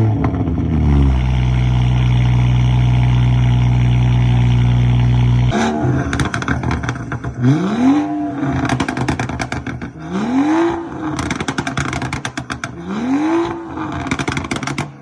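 Performance car exhausts in turn: the first engine flares up as it starts and settles into a steady, deep idle. After about five and a half seconds the sound cuts to the other car, its exhaust blipped three times with rising-and-falling revs and a lot of popping and crackling. The pair is a Dodge Scat Pack with mid-muffler and resonator delete and a stage 2 BMW 540i on a full straight-pipe exhaust.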